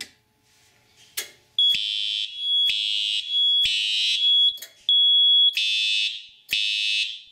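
Fire alarm horn/strobe's horn sounding in repeated loud blasts, pulsed by the fire alarm panel, which is coding the continuous-set horn to code 3. A thin steady high tone sounds in the gaps between blasts, and a click comes about a second in, just before the horn starts.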